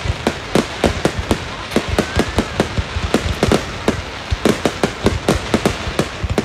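Aerial fireworks bursting in a rapid, irregular string of sharp bangs, several a second.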